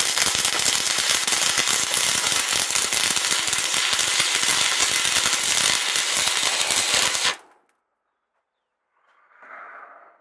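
Stick (arc) welding steel: the electrode's arc crackling and spitting in a fast, steady crackle, which cuts off suddenly about seven seconds in.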